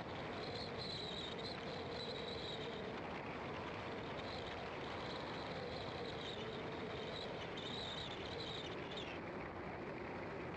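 Car driving along a road: steady engine and tyre noise, with a high pulsing buzz on top that cuts off suddenly about nine seconds in.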